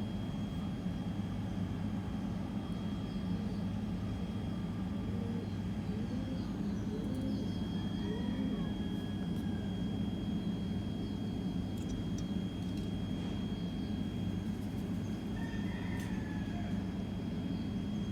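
Steady low mechanical hum with a thin high whine over it, and a few faint bird chirps about five to eight seconds in and again near the end.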